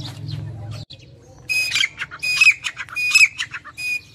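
Grey francolin calling: four loud calls in a row, about three-quarters of a second apart, each a ringing note with a harsh edge. Before them a low hum cuts off suddenly about a second in.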